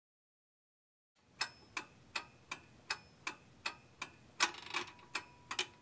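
Mechanical clock-like ticking: sharp metallic ticks, each with a brief ring, about three a second. It starts after a second of silence, and near the end the ticks come quicker and uneven.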